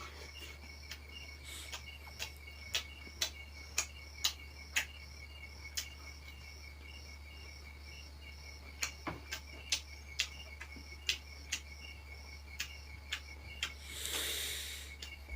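Faint, steady, rapidly pulsing high chirping of insects over a low hum, with irregular sharp clicks and taps throughout and a brief soft rush near the end.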